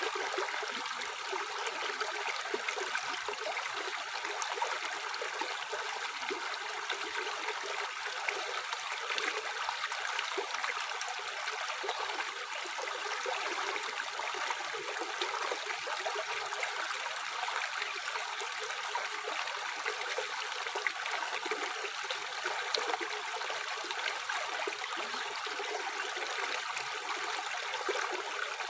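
Tap water running steadily into a sink, an even splashing with little low rumble.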